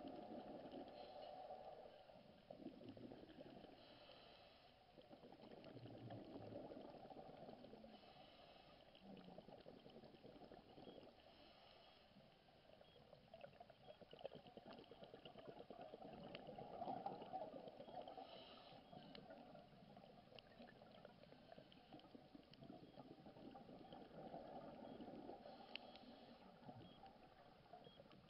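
Faint underwater sound of a scuba diver breathing through a regulator: exhaled bubbles gurgle out in slow swells every few seconds.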